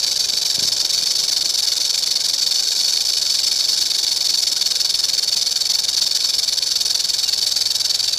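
Snake hissing: one steady, unbroken hiss.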